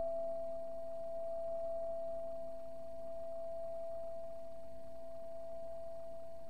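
Quartz crystal singing bowl tuned to C, ringing with a steady pure tone over a fainter low note.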